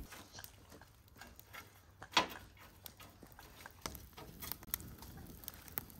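Dry vine twigs crackling as they burn in a metal grill: scattered sharp snaps, with one louder pop about two seconds in.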